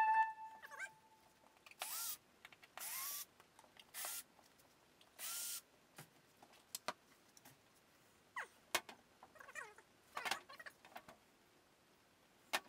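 Cordless drill-driver run in four short bursts of about half a second each, its motor whine rising as it spins up and then holding. Scattered light clicks and knocks of handling follow.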